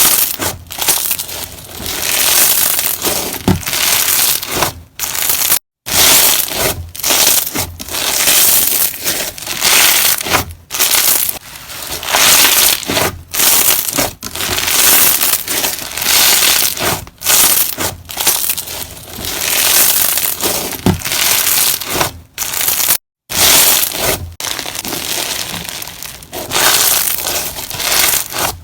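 Slime being squeezed and pressed by hand, giving dense crackling in repeated bursts about a second apart. Two very short dropouts fall at about six seconds and again near the end.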